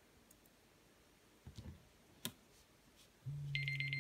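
Tablet countdown timer alarm going off as the one-minute countdown runs out, about three seconds in: a repeating electronic ringtone with a steady low tone under fast high beeps. Before it, only a couple of faint taps.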